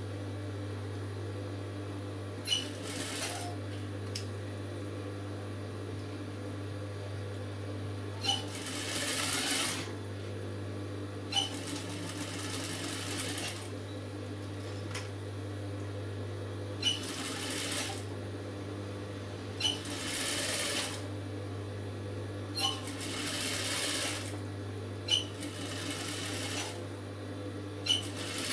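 Industrial lockstitch sewing machine stitching round a curve in about seven short stop-start runs of one to two seconds, each starting with a sharp click, over a steady low hum.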